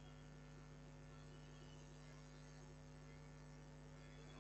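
Near silence: a faint, steady electrical hum in the recording's background.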